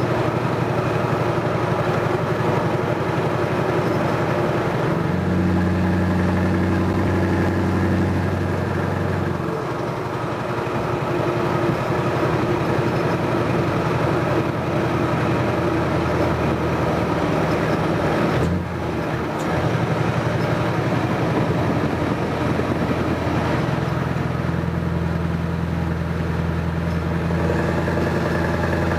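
Scania 580 V8 diesel truck engine running while the truck drives, heard from inside the cab. The engine note shifts in pitch several times: up about five seconds in, down around ten seconds, with a brief break near the middle and another rise after about twenty-three seconds.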